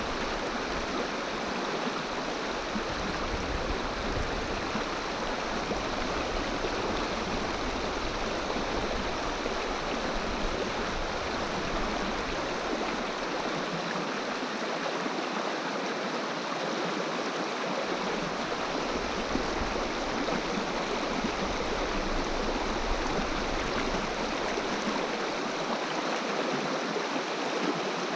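Swift river current rushing steadily over its bed, an even, unbroken water noise.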